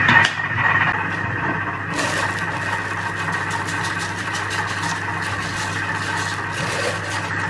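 A steady electrical hum, joined about two seconds in by a dense, fine crackling patter of dry rice grains being poured into a pot of boiling water.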